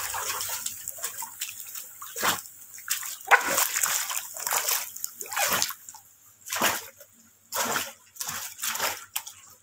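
A dog paddling through pool water, its strokes making irregular splashing and sloshing sounds.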